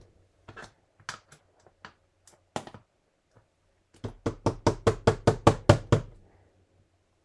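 Small rubber stamp tapped repeatedly against the work surface while stamping tiny footsteps: scattered single taps at first, then a quick run of about a dozen taps, roughly six a second, about four seconds in.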